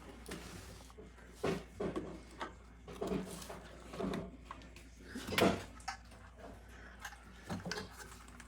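Faint scattered knocks and rustles, like objects being handled, over a low steady hum.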